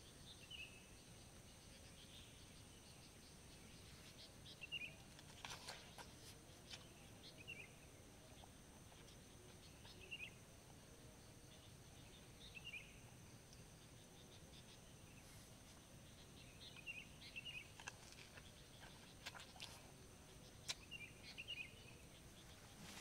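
Faint forest ambience: a bird giving short chirps every few seconds over a steady high insect drone, with a few light clicks.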